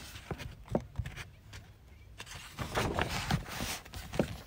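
Hands handling an open paperback book: fingers sliding and tapping on the paper, with a short rustle of the pages about three seconds in.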